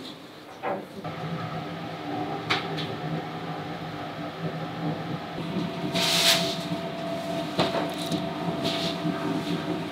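A machine running with a steady hum, with scattered knocks and a short loud hiss about six seconds in.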